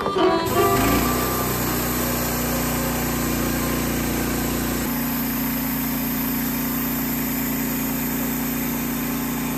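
Portable band sawmill's gas engine running steadily, with a shift in its note about five seconds in. Background music cuts off at the very start.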